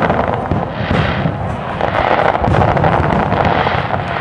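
Aerial fireworks shells bursting in rapid succession, a dense, continuous run of booms and cracks that eases slightly about a second in and builds again.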